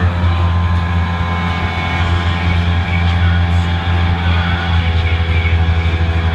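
Boat engine running steadily under way, a deep, even drone heard from inside the boat's enclosed cabin.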